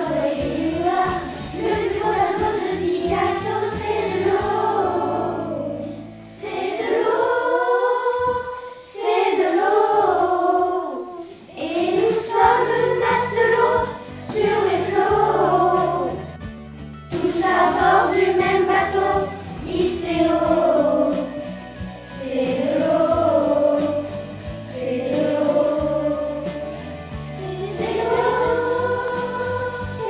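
A choir singing a song over instrumental accompaniment, in sung phrases a few seconds long separated by short breaths.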